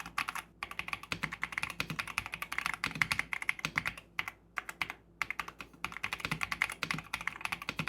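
Ajazz AK820 mechanical keyboard, modded with Akko Purple Pro tactile switches, PBT double-shot OEM-profile keycaps and a tape mod, being typed on quickly: a fast run of keystrokes with a few short pauses.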